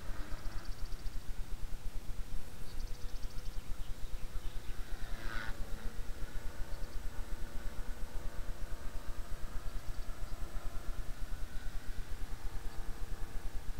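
Blade 300 X electric RC helicopter in flight, its motor and rotor whine holding a steady pitch, with one quick drop in pitch about five and a half seconds in. A fast, even pulsing, about ten a second, runs under it.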